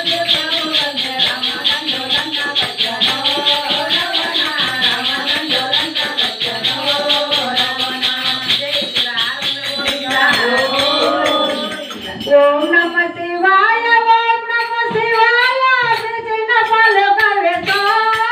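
Women singing a devotional bhajan into microphones, with a steady rhythmic jingle of hand percussion under the voices. About twelve seconds in, the singing comes forward louder and clearer and the jingling thins out.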